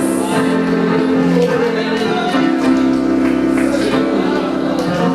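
Church worship music: long held chords, with some singing.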